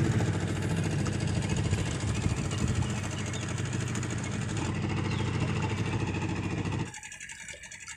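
Small outboard motor running steadily, pushing a boat through the water; the sound drops away abruptly about seven seconds in.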